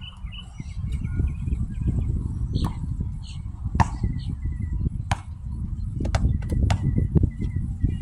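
Wind buffeting the microphone, with several sharp knocks of a basketball bouncing on the court.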